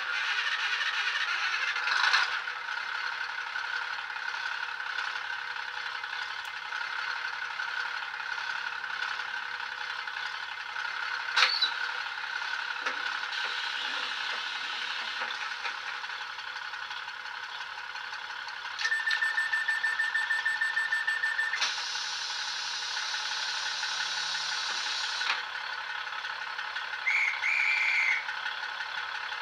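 DCC sound decoder in a Bachmann OO-gauge Class 150 DMU model, played through small sugarcube speakers, reproducing the unit's diesel engine starting and then idling steadily. A sharp click comes about eleven seconds in. Later a steady beep sounds for a couple of seconds, followed by a few seconds of hissing air.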